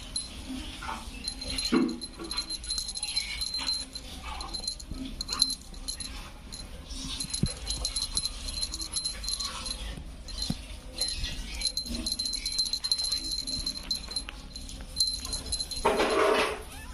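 A small toy bell jingling on and off, and a kitten meowing once near the end.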